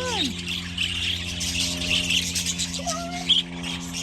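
A flock of budgerigars chattering, dense and continuous, full of overlapping high chirps and warbles. A steady low hum runs underneath.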